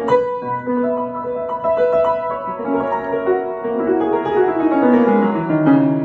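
Upright piano played in a fast, busy improvisation in F-sharp major: a chord struck at the start, quick notes in both hands, then a run stepping down the keyboard over the last couple of seconds.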